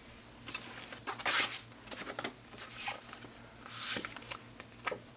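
Paper and cardboard being handled: album inserts and photo cards sliding and rustling in short strokes, with a few light taps.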